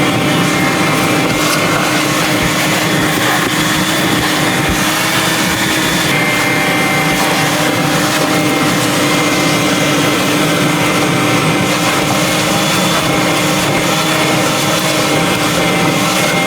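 Vacuum cleaner running steadily, a loud constant motor whine with airflow rush, while vacuuming a car's interior.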